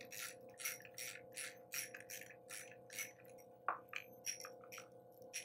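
Threaded rod of a homemade air-rifle spring compressor being turned by hand, giving a rhythmic metallic scraping about three times a second, with a sharper click a little over halfway. Under it runs the steady hum of a shop heat pump.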